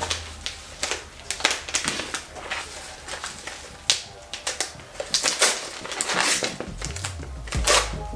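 Yellow padded paper mailer being torn open by hand: irregular crinkling and tearing crackles, coming thicker about five seconds in.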